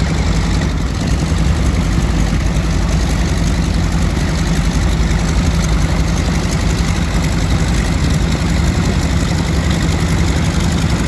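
A North American Texan trainer's nine-cylinder Pratt & Whitney R-1340 Wasp radial engine idling steadily as the plane taxis, a deep, even engine note.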